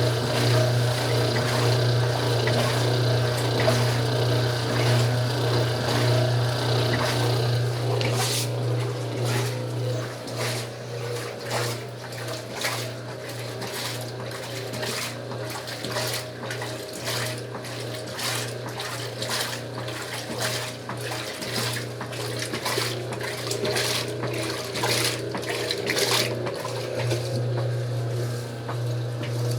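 Old Wanke washing machine running with water in the tub: a steady low motor hum under the sound of water. About eight seconds in, irregular sloshing and splashing starts and keeps on.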